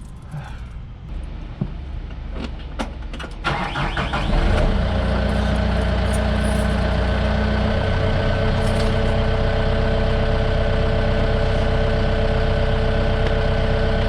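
A few clicks, then a Bomag roller's diesel engine cranks and starts about four seconds in, settling into a steady idle.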